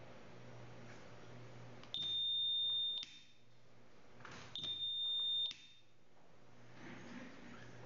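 Electronic beeper sounding two steady high-pitched beeps, each about a second long, about two and a half seconds apart, as the magnetic lock kit's circuit is tested.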